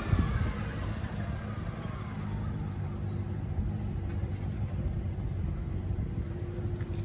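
A vehicle's low, steady rumble, with a short knock just after the start.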